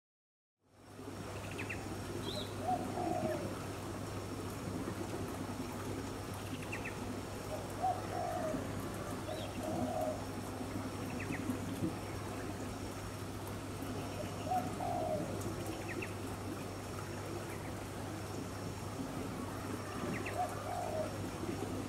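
Doves cooing: five short cooing phrases spread a few seconds apart, with brief high bird chirps in between, over a steady low hum.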